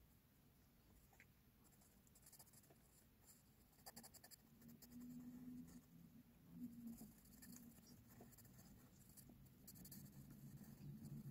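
Faint scratching of an HB graphite pencil on textured drawing paper: quick, short hatching strokes coming in clusters.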